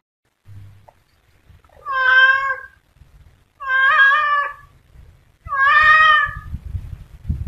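Domestic cat meowing three times, each call under a second long, about two seconds apart. Low rumbling noise rises beneath the later calls.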